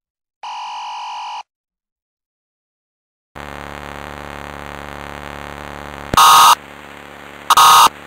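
Electronic alert tones from a mock Emergency Alert System broadcast. A single steady tone lasts about a second near the start, then cuts off. After a pause a steady electrical hum begins, and two short, loud bursts come over it about a second and a half apart near the end.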